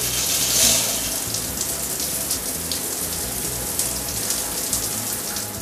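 Shower running: water spraying from a showerhead onto a tiled wall as a steady hiss, which stops suddenly near the end.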